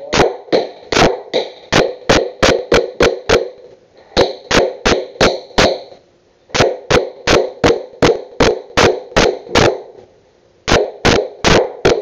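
Hammer driving nails into a wooden board: quick blows about three a second, each with a short ring, in several runs broken by brief pauses.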